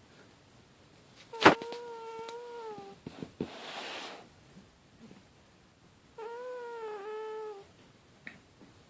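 Sleeping domestic cat making a snore-purring noise: two drawn-out squeaky tones, each about a second and a half long, with a breathy hiss between them and a brief chirp near the end. A sharp click comes with the start of the first tone.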